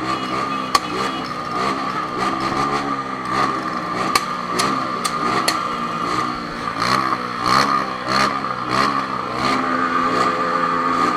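Honda CB1000 motorcycle's inline-four engine running on the move, its pitch rising and falling again and again with the throttle, over a steady higher hum and scattered sharp clicks.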